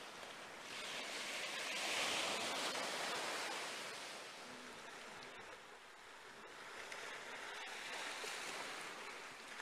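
Small sea waves breaking and washing up a dark sand and pebble beach: one wave surges loudest about two seconds in and fades, and a second, weaker wash rises near the end.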